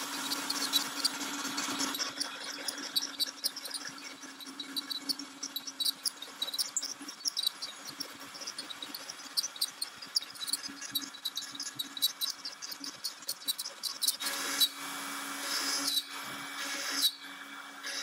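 Makita trim router spindle on a CNC machine running steadily with a low hum while its bit carves and pecks dot holes into a cedar board, giving a rapid run of high ticks and chirps. The footage is sped up, so the cutting sounds come fast and high. It gets louder briefly near the start and again for a few seconds near the end.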